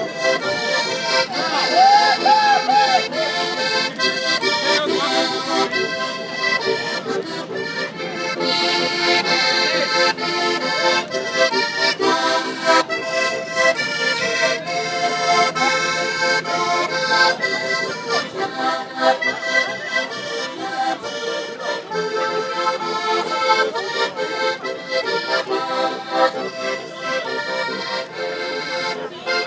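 Accordion playing a tune with a quick, steady rhythm.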